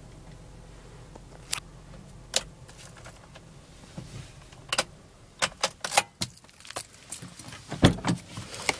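Car keys jangling and clicking in the ignition of a 2009 Honda CR-V, as the ignition is switched off, over a faint low hum of the engine idling. There are a series of sharp clicks, and a louder knock near the end.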